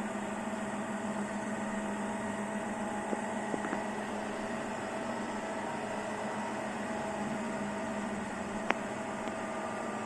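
Siemens iQ500 washing machine running its drum-cleaning programme: a steady motor hum, with a few light clicks about three seconds in and again near the end.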